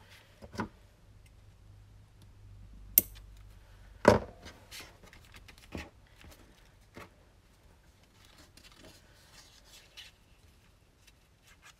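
Hands handling black cardstock and wrapping baker's twine around it on a cutting mat: soft rustling and scraping with a few sharp taps and knocks, the loudest a pair about three and four seconds in.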